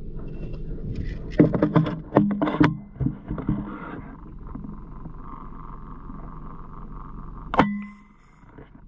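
Irregular rustling and knocks of someone walking through brush, then a faint steady hum, and a single sharp crack with a brief ringing tone near the end.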